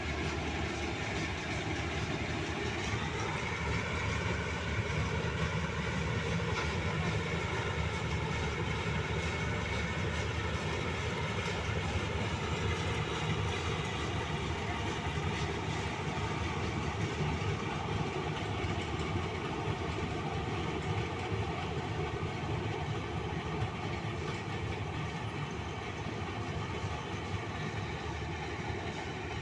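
Paddy combine harvester's engine running steadily under load, rising in pitch about three seconds in and then holding.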